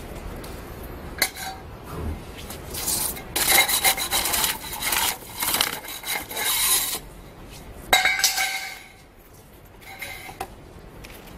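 A hand tool scraping and rubbing along the EPS foam core at the edge of a sandwich panel, cutting the foam away, with squeaky rubbing in long stretches and a sharp click about a second in.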